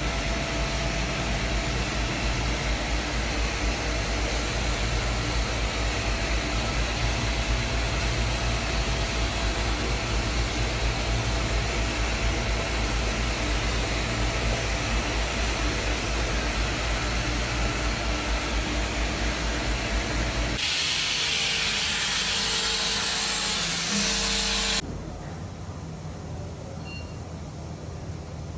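Machine tool running while cutting die tooling: a steady loud running noise with a low hum and faint steady tones. About 20 seconds in it gives way to a loud hiss lasting about four seconds, then drops to a quieter steady hum.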